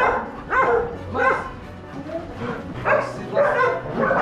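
Shelter dogs barking and yelping in short repeated calls, several in quick succession, with background music underneath.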